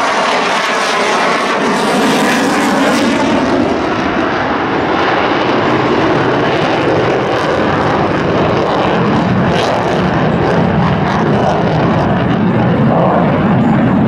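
F-22 Raptor's twin Pratt & Whitney F119 turbofans, loud and steady throughout. The pitch sweeps in the first few seconds as the jet passes.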